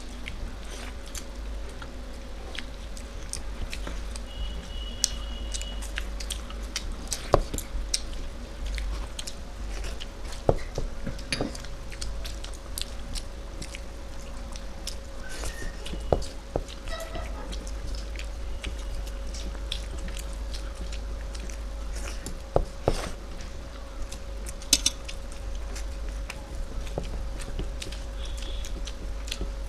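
Eating sounds: chewing and biting, with many short sharp clicks and smacks scattered throughout, over a faint steady hum.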